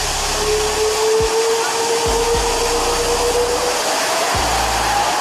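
Turbofan engines of a twin-engine widebody jet airliner running at the runway end: a loud, steady rush of exhaust noise with a whining tone on top, the pitch rising near the end as the engines spool up.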